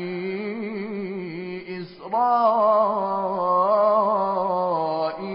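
A man's voice reciting the Quran in melodic tartil style, drawing out long held vowels with a gently wavering ornament. There is a brief break about two seconds in before the next long held note.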